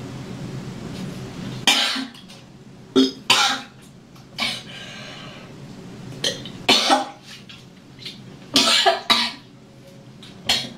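A woman coughing and retching into a toilet bowl while being sick: a run of short, harsh coughs and gags with pauses between them. A low hum stops abruptly near the start.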